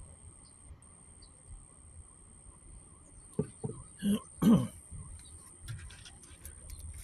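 A person clearing their throat, a few short rough sounds about three and a half to four and a half seconds in, over faint low background noise.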